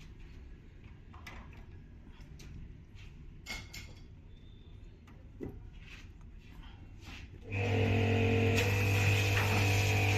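A few light clicks and knocks of parts being handled, then about seven and a half seconds in an electric motor starts and runs with a steady loud hum and hiss.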